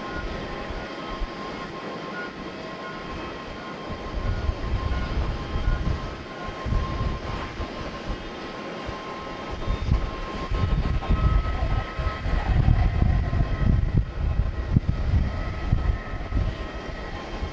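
Airliner jet engines at taxi power, heard from a distance as a steady whine, with uneven low gusts of wind rumbling on the microphone that grow stronger in the second half.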